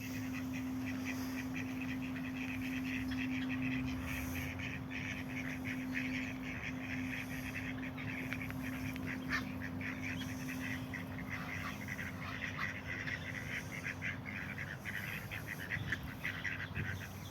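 A flock of ducks and geese calling without pause, with many short quacks and chatter overlapping. A steady low hum runs underneath and fades out near the end.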